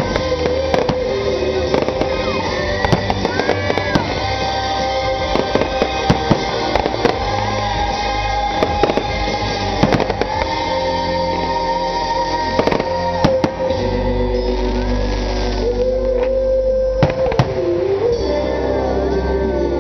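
Fireworks going off in quick succession, with many sharp bangs over loud music that has long held melody notes and a heavy bass.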